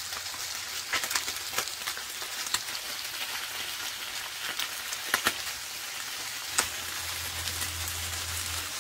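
Surf perch fillets sizzling in hot olive oil in a non-stick frying pan, a steady hiss broken by scattered sharp clicks and pops as the fillets are turned over with a silicone spatula.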